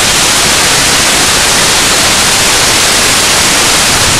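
Loud, steady static hiss, even from the lowest to the highest pitches, with no tone or rhythm in it.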